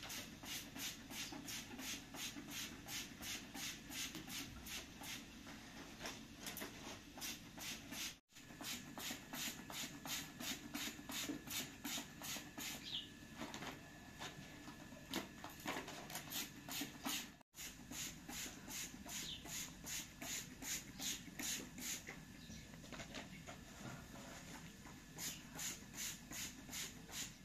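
Raw meat being pounded on a stone, steady strikes about three a second. The sound cuts out suddenly twice.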